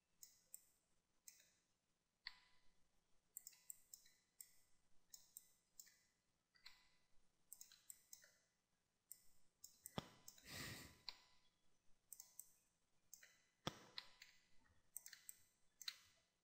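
Faint, irregular clicking of a computer mouse and keyboard, with a breath out about ten seconds in.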